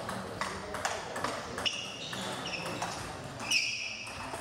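Table tennis rally: the plastic ball clicks off bats and table about two to three times a second for the first couple of seconds, then the point ends, with voices in the hall behind.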